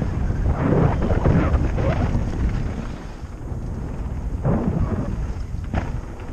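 Wind buffeting a helmet-mounted GoPro's microphone while a mountain bike rolls down a dirt trail, with tyre noise on the dirt underneath. The rumble swells in gusts, eases about halfway through, then builds again.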